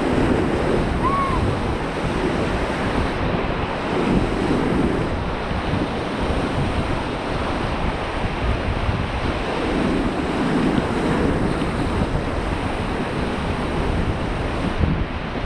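Rushing river water, steady and loud, with wind buffeting the microphone.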